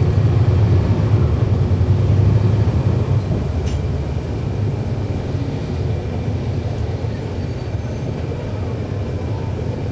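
Cummins ISL9 inline-six diesel of a NABI 40-foot transit bus, heard from inside the bus, running under load with a deep drone. About three seconds in the engine note drops and quietens to a steadier hum, with a single short click just after.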